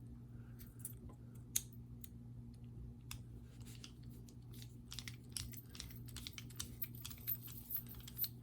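Faint, scattered small clicks and ticks of small metal knife parts and a screwdriver being handled as the pivot is fitted back onto a folding knife, coming more often from about halfway through, over a steady low hum.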